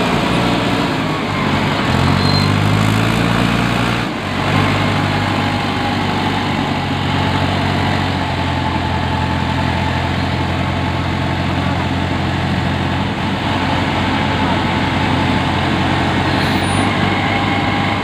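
A self-loading concrete mixer's diesel engine running steadily, with a dense mechanical rush over its note. The engine pitch is raised for a couple of seconds, breaks briefly about four seconds in, then holds steady.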